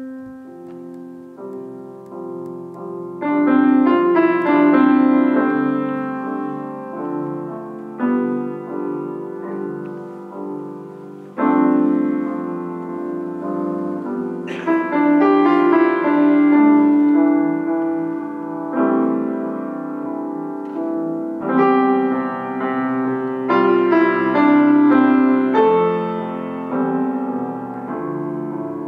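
Yamaha grand piano played solo: chords and a melody whose notes ring on and fade, with a fresh loud chord struck every few seconds.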